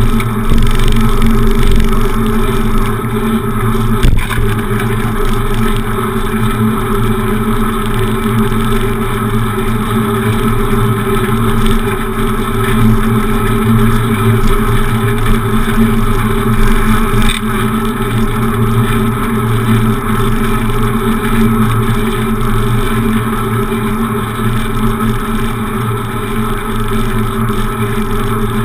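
Steady rumble of wind and road noise from a bicycle in motion, with a single knock about four seconds in.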